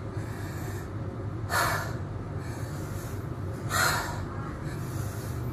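A man breathing hard from burpees: two sharp, noisy breaths about two seconds apart, over a steady low hum.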